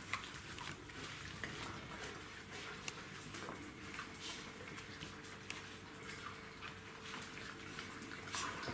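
Czechoslovakian wolfdog puppies eating from a shared bowl: many small, irregular clicks of chewing and lapping.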